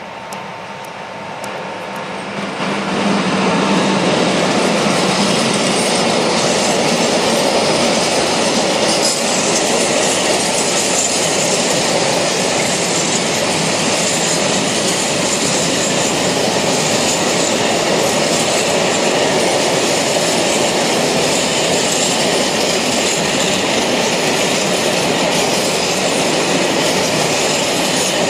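MÁV class V63 electric locomotive approaching and passing, then a long train of open freight wagons rolling by: a steady, loud rush of wheels on rail. The loudness jumps sharply about three seconds in as the train draws level.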